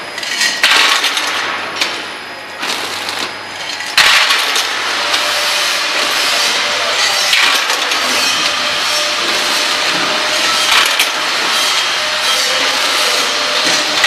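Semi-automatic screw packing machine running as it bags screws in plastic film: a loud, dense crackling clatter with many small clicks. It shifts in level a few times in the first four seconds, then runs steadily.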